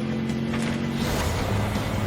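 Cartoon mechanical sound effects under background music: a steady held tone for about a second, then a noisy, rattling rumble.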